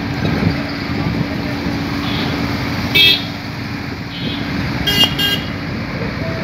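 Sany crawler excavator's diesel engine running with a steady hum. A vehicle horn toots once about three seconds in, then twice in quick succession about five seconds in.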